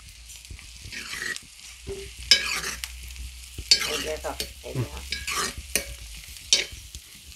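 Sliced onions sizzling in oil in a black iron pan, stirred with a steel spoon that scrapes the pan in irregular strokes. The onions are being sautéed until they brown and soften.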